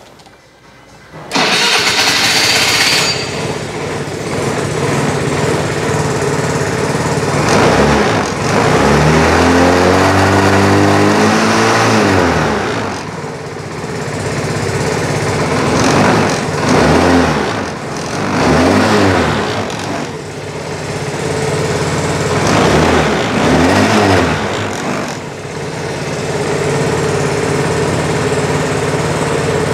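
Peugeot Satelis 125 scooter's single-cylinder four-stroke engine starting about a second in and settling to idle. It is revved with one long rise and fall in pitch, then several shorter throttle blips, before idling steadily again.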